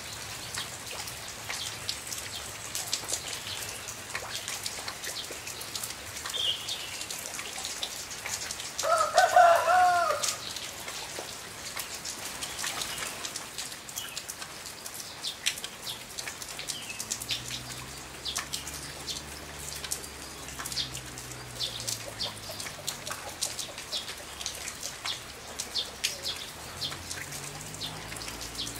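Steady rain pattering and dripping, with one loud honking call from a white domestic goose about nine seconds in.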